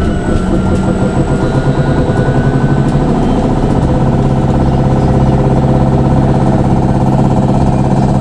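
Cabin noise of a VinLine trolleybus under way: the electric drive's hum mixed with road and tyre noise, settling into a steady low drone about four seconds in.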